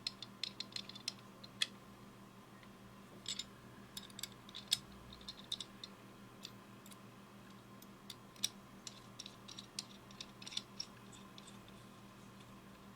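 Faint, irregular clicks and ticks of a Hyper Tough 6-inch aluminum mini hacksaw being handled as its blade is taken out and the blade holder is moved to a new angle and set back.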